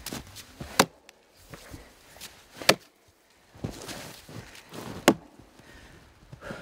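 Axe chopping into a log lying on the ground: three sharp strikes about two seconds apart, cutting the notch from the other side to sever the log.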